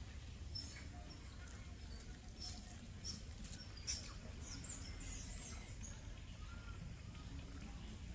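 Baby long-tailed macaque giving short, high squeaks and squeals in a cluster around the middle, the distress calls of a baby being grabbed and handled by a young monkey. A sharp click comes about four seconds in, over a steady low rumble.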